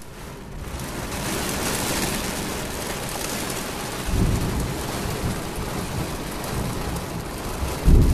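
Heavy rain falling steadily, fading in over the first second, with two deep rumbles, one about four seconds in and one near the end.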